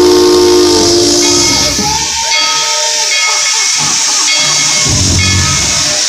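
Steam locomotive whistle sounding a steady chord that cuts off about a second and a half in, followed by a loud, steady hiss of steam venting from the locomotive.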